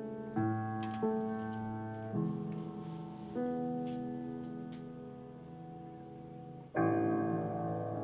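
Background music: slow, sustained piano chords, a new chord struck every second or so and left to fade, with a louder chord near the end.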